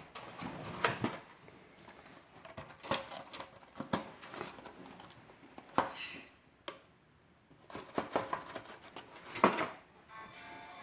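Irregular soft taps, scratches and scuffles, a few clusters spread over several seconds with a short quiet gap in the middle.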